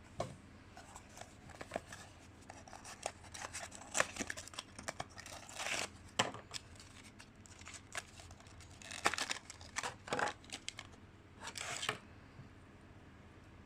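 Packaging of a 1:500 scale model airliner being handled and opened by hand: irregular clicks, scrapes and rustling of box and plastic, in uneven bursts that stop about a second and a half before the end.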